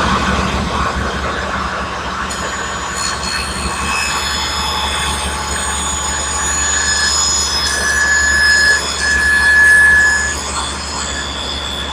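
Table saw with a dado blade running: a steady motor hum with high, squeal-like whining tones that grow louder about eight to ten seconds in.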